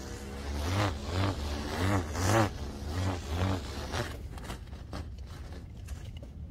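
Vital UL dual-line stunt kite buzzing through the air as it is flown: a humming tone that swells and dips about twice a second for a few seconds, then eases off to a faint rustle.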